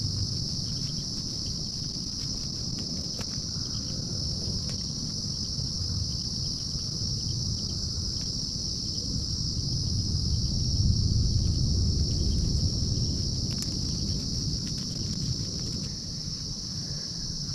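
Steady chorus of insects in the surrounding woods, one continuous high-pitched drone, over a low rumble that swells about ten seconds in.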